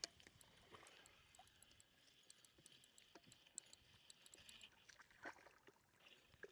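Near silence, with a few faint scattered ticks and clicks.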